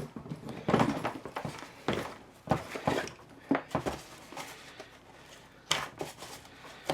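Handling noises from working on a suitcase's telescopic handle and its interior: irregular knocks and clicks of plastic and metal parts, with rustling between them as the lining is pulled back.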